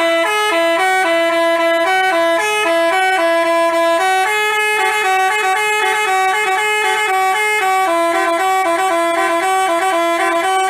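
Basuri telolet bus horn, a multi-tone horn playing a tune: a continuous melody of quick, loud stepped notes.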